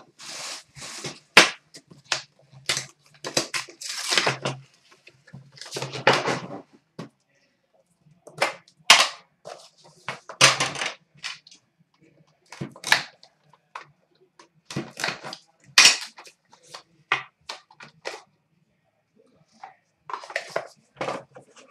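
Hands opening a sealed hockey trading-card box: wrapping crinkling and tearing, with sharp clicks and knocks as the lid and the inner case are handled and set down on a glass counter. The sounds come irregularly, with a few short pauses.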